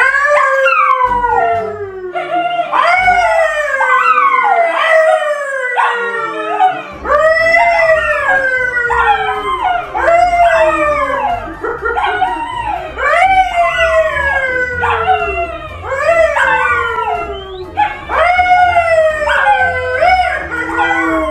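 A man howling like a dog: a long run of howls, each sliding down in pitch, one after another about every second or two.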